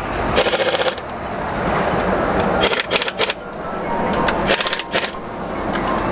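Several short bursts of rapid clicking from a wrench turning bolts on the truck's Cummins diesel engine, over a steady low hum.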